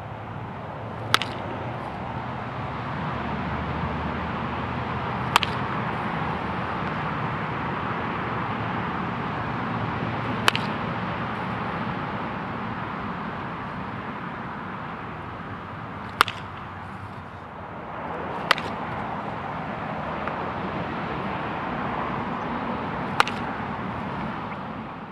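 A wooden baseball bat hitting balls in batting practice: six sharp cracks a few seconds apart, over a steady background rush.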